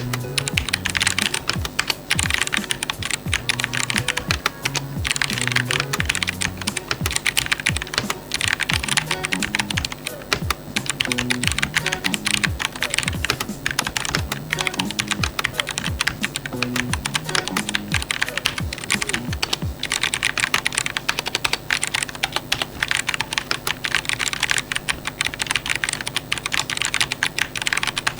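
Fast typing on an Aula Wind F3032 mechanical keyboard with brown switches: a dense run of key clacks coming in bursts, with soft background music under most of it.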